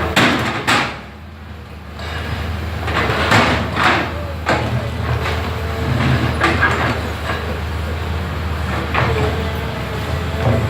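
Excavator engine running steadily, with a handful of short, sharp noises from the machine at uneven intervals and a brief drop in level about a second in.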